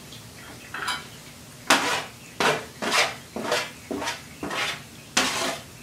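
Metal baking sheet clinking and scraping against the rim of a glass jar while bacon grease is drained from it, in a run of sharp strokes at about two a second starting a couple of seconds in.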